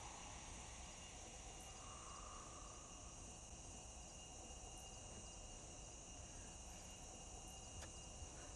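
Faint night ambience of crickets chirping steadily, with a single soft click near the end.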